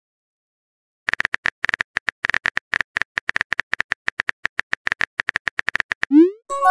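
Texting app's synthetic keyboard clicks, a quick even run of about nine a second while a message is typed, starting about a second in. Near the end comes a short rising swoop as the message is sent, and then a chime begins.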